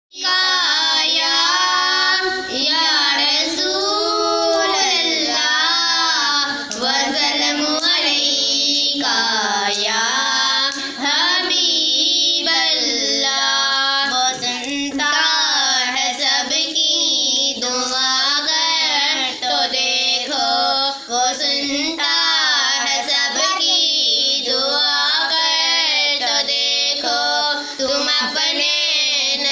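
A young girl singing a naat, an Urdu devotional hymn, into a handheld microphone. Her melody bends up and down through long phrases, with short breaks between lines.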